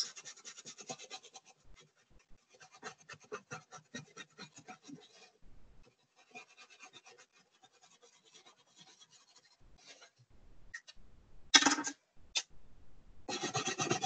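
Felt-tip marker scribbling quickly over a plastic milk jug: faint rapid scratchy strokes in runs with short pauses. Near the end comes a short louder scrape and a click.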